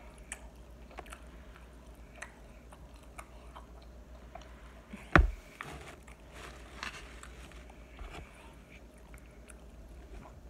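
Close-up mouth sounds of a person chewing food, with small wet clicks scattered throughout, over a low steady hum. A single sharp knock about five seconds in.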